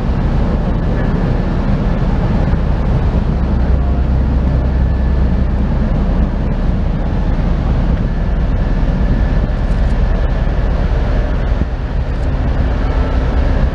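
Low, steady drone from the ferry Silver Breeze as it passes close by, mixed with wind rumbling on the microphone.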